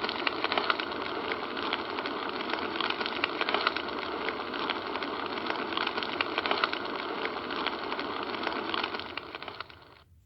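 Steady crackling hiss full of small clicks that fades out and stops about a second before the end.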